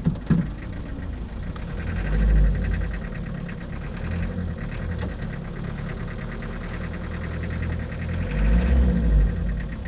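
Old truck's engine heard from inside the cab, running under way and revving up twice, about two seconds in and again near the end.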